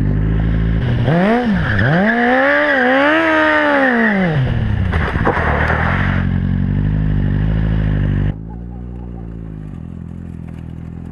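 Kawasaki Z750 inline-four motorcycle engine in a homemade go-kart, revving hard up and down, heard loud from on board. About eight seconds in, it drops to a quieter, steadier engine note heard from beside the track.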